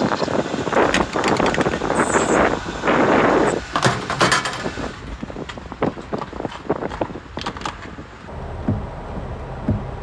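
Strong wind buffeting the microphone in loud gusts, with a few sharp knocks, dying down about halfway through. Near the end a steady low car rumble from inside the cabin takes over.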